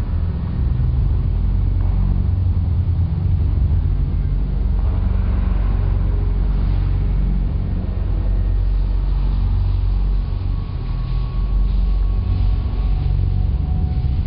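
A steady low rumble throughout, with faint thin tones higher up that come and go.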